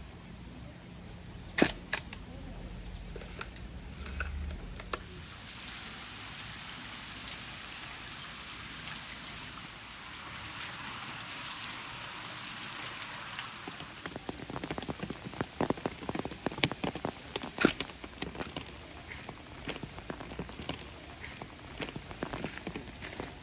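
Steady rain falling on trees and ground, with a single sharp mechanical click about one and a half seconds in from a Hasselblad 500C/M's shutter and mirror being released. In the second half, irregular taps and another sharp click come over the rain.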